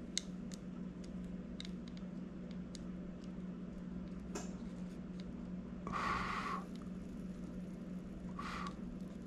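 Soldering iron tinning the solder pads of a lithium battery BMS board: faint clicks of wire handling, and two short hisses, the longer about six seconds in and a brief one about two seconds later, as the hot iron meets the solder, over a steady low hum.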